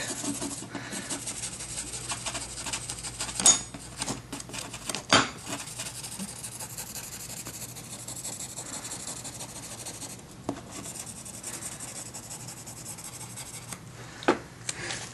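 Permanent marker (Sharpie) being scrubbed back and forth to shade in an area of a part for layout, a steady fast scratching and rubbing, with a few louder clicks and taps along the way.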